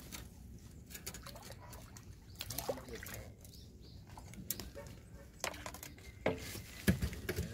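Water lapping and splashing lightly on a reservoir surface, with scattered small clicks and a louder low knock near the end as the fishing rod is lifted.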